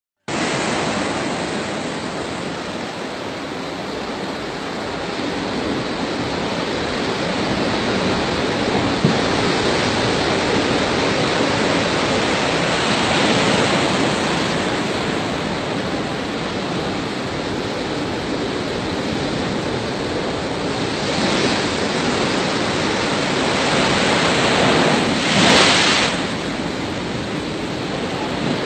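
Sea waves breaking and washing in: a continuous rushing noise that swells several times, loudest briefly near the end.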